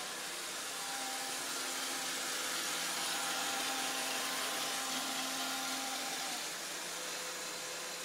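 Roomba robot vacuum cleaner running, giving a steady whirring hiss from its motor and brushes that is a little louder through the middle.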